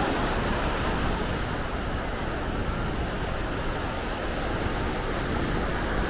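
Steady wash of ocean surf breaking on a sandy beach.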